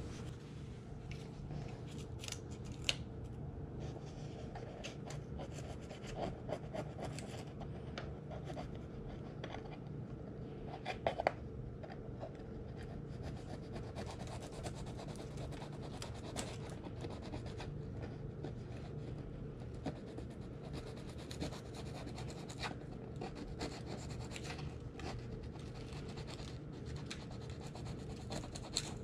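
Dry, brittle paper and cardboard scratching and crackling in scattered short bursts as an old build sheet is scraped and peeled off its glued cardboard backing. A steady low hum runs underneath.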